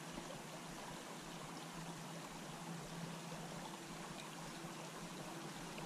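Small creek running, a faint steady rush of flowing water.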